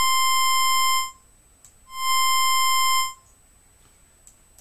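Two held notes from an LMMS BitInvader software synthesizer, each a steady buzzy tone rich in overtones that swells in and fades out, shaped by its volume envelope. The first is already sounding and stops about a second in; the second runs from about two to three seconds in.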